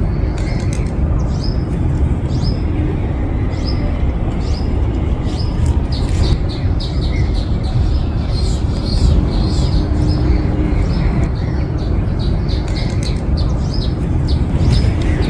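Small birds chirping, short high notes repeated over and over and thickening about a third of the way in, over a steady low rumble.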